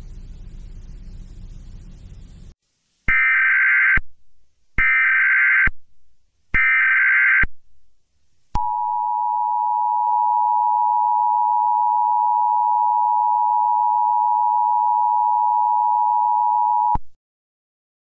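Emergency Alert System tones: three one-second bursts of SAME header data squawks, then the two-tone EAS attention signal held steady for about eight seconds before it cuts off suddenly.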